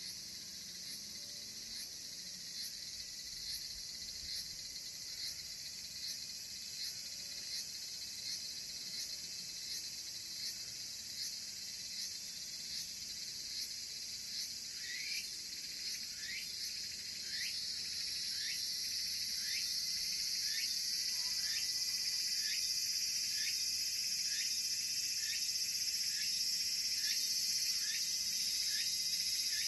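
Tsukutsukuboushi cicadas (Meimuna opalifera) singing over a steady high buzz. A series of short rising notes repeats about every two-thirds of a second, and in the second half the song swells into a louder, continuous buzz.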